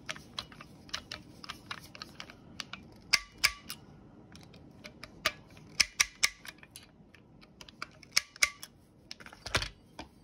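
Torque driver clicking as it tightens the optic's mounting screws to about 18 inch-pounds: a run of light clicks, with louder sharp clicks coming in pairs every few seconds.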